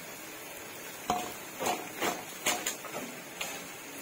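Potato sticks deep-frying in hot oil in an iron wok, a steady sizzle. From about a second in come several sharp clicks and knocks.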